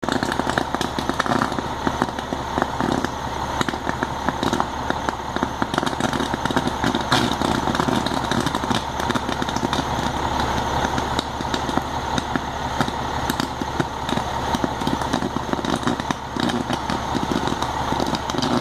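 Steady drone of a fire engine running at a working house fire, with dense crackling from the burning structure throughout.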